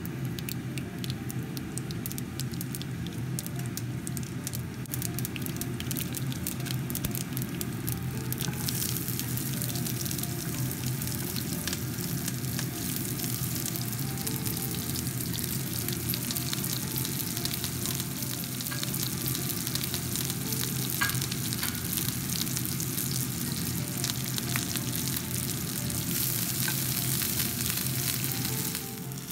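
Mustard seeds crackling and sizzling in hot coconut oil in a pan. About eight seconds in the sizzle grows louder and denser, with onion, dried chilies and curry leaves frying in the oil.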